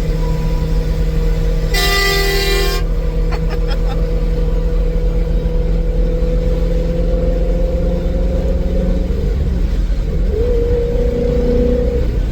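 A semi truck's air horn sounds once, a blast of about a second, over a steady drone of road and engine noise.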